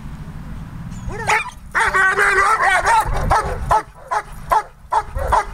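Young German shepherd barking at a protection-training helper while guarding him: high, whiny yelps running into a rapid string of barks, then separate sharp barks about two to three a second. The whine in the barking is typical of a young dog still learning to guard.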